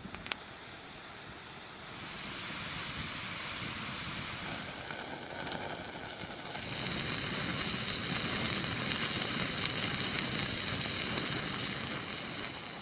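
Fire burning: a steady rushing hiss of flames and glowing charcoal, growing louder about halfway through.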